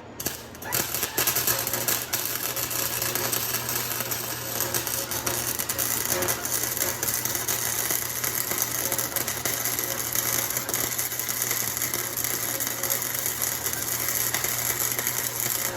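Harbor Freight welder's arc crackling and sizzling steadily through one long weld bead. It strikes just after the start, over the welder's low steady hum.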